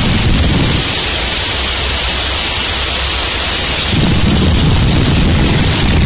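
Gorenoise harsh noise music: loud, dense distorted static. About a second in, the heavy low rumble drops away, leaving a thinner high hiss. The low rumble comes back about four seconds in.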